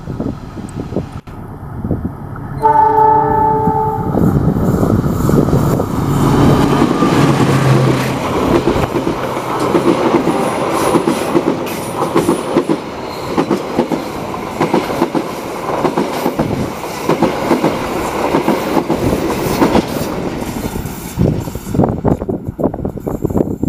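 Argo Wilis passenger train passing close by. The diesel locomotive gives one horn blast, about a second long, near three seconds in, then the train runs past with a steady rhythmic clatter of coach wheels over the rail joints. The clatter thins out near the end as the last coach moves away.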